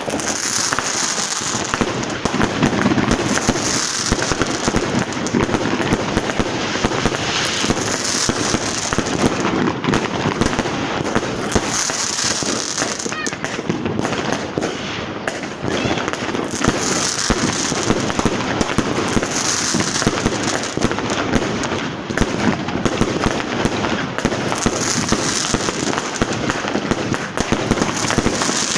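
Street New Year's Eve fireworks: a dense, unbroken barrage of firecracker bangs and crackling, many explosions overlapping with no pause.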